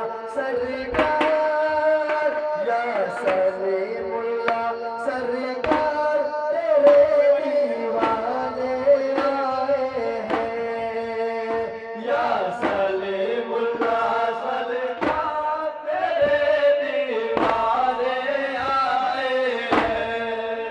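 Devotional music played loud, likely over a sound system: a held, stepping melody line with male chant-like singing and irregular hand-drum strikes.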